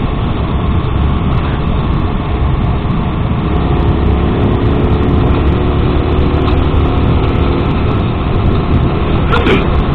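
Wind rushing over a helmet-mounted microphone while riding, over the steady running of a Sinnis Max 2's engine, with a faint steady hum for a few seconds in the middle.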